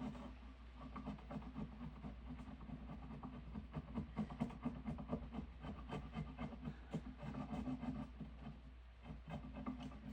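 Hand work on a piece of diamond willow: quick, irregular scraping and rubbing strokes on the wood, over a steady low hum.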